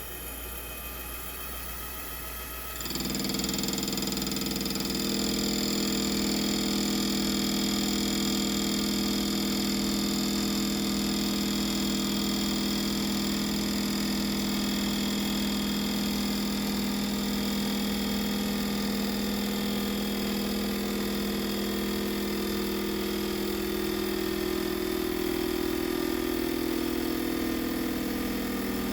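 Mini lathe turning steel. About three seconds in, a loud steady motor whine starts up and holds: the drill driving the lathe's cross feed through another 10-thousandths cut.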